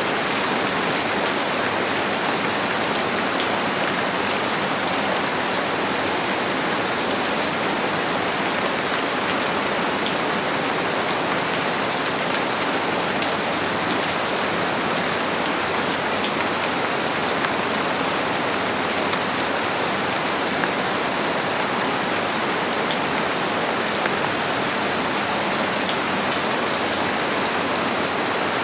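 Steady rain falling, an even hiss of many drops with fine patters of individual drops hitting a surface.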